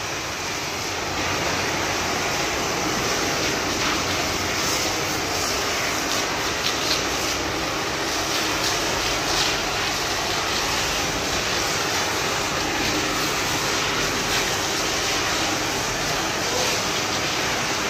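Pressure-washer wand spraying detergent water against the underside of a car on a lift: a steady hiss of spray.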